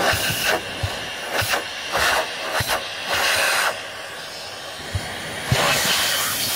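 Vacuum cleaner running with its nozzle worked over the dented dust cap of a woofer to suck the dents back out. The air hisses in repeated louder bursts as the nozzle is moved over the dome, with a few soft knocks.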